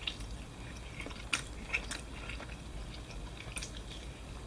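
A person chewing a mouthful of pizza, with a few scattered soft wet mouth smacks and clicks.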